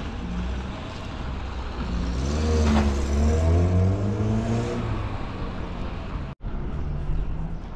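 A car driving by on the road, its engine hum and tyre noise steady, with the engine note rising and falling about halfway through as it passes. The sound drops out for an instant near the end.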